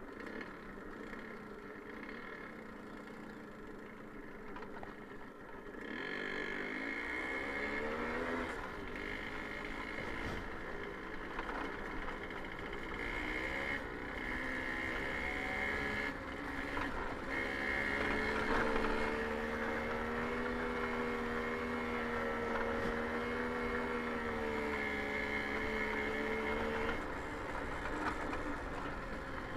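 Babetta 210 moped's 50 cc single-cylinder two-stroke engine running under way. It is quieter at first, then about six seconds in it gets louder and its pitch climbs, rises again midway, holds a steady higher note and eases off near the end.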